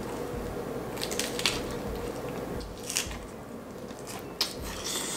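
Close-up chewing of a lettuce wrap filled with fried fish and fresh vegetables: wet, crisp crunches at irregular intervals of a second or two, with a sharp click about four seconds in.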